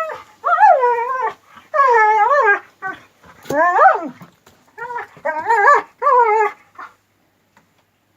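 Garafiano shepherd dog whining and squealing in a string of about six drawn-out, wavering calls that bend up and down in pitch, stopping about 7 s in. The sounds are typical of excited, affectionate greeting.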